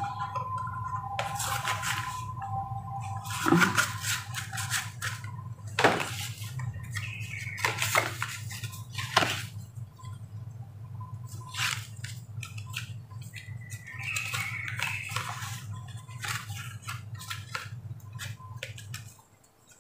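Paper inserts rustling and scraping as they are slid into and out of the card slots of a leather wallet, with irregular handling noises as the wallet is folded and opened. A steady low hum runs underneath and stops near the end.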